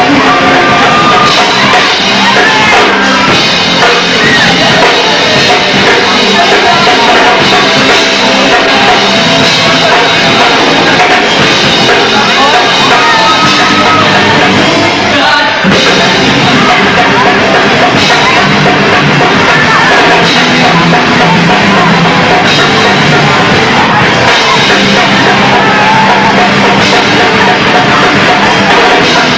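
Rock band playing live, loud: electric guitars and drum kit with sung and yelled vocals. The music drops out for an instant about halfway through before carrying on.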